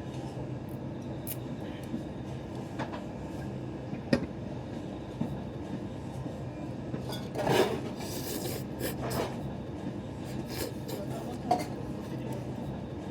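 Train running, a steady low hum with scattered clicks and knocks, and a louder rush about halfway through.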